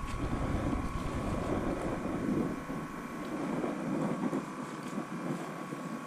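Traffic rumbling over the concrete road bridge overhead, a steady rumble under a faint steady hum, its deepest part dropping away about two seconds in.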